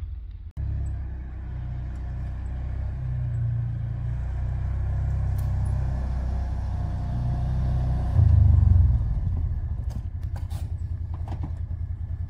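Side-by-side utility vehicle's engine idling with a steady low rumble. It swells loudest for about a second past the middle, then settles into an even pulsing idle. A few light clicks come near the end.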